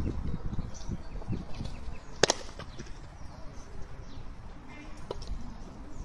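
A single sharp, loud pop about two seconds in, a pitched baseball smacking into the catcher's mitt, with a fainter click a few seconds later. Birds chirp faintly throughout.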